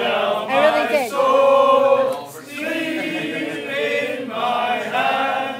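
A group of men singing an old pub song together in chorus, holding long notes, with a short break about two seconds in.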